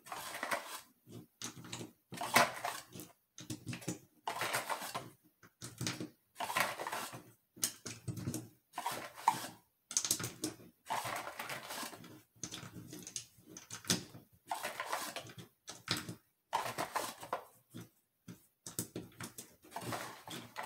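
Ten .22 LR rounds being pressed one at a time into a Glock 44's plastic 10-round magazine: a series of short clicks and scrapes, about one every two seconds, the magazine loading without a hitch.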